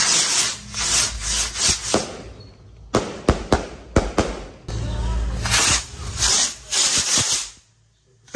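Fireworks and firecrackers going off: swells of hissing crackle with a run of sharp pops about three to four seconds in.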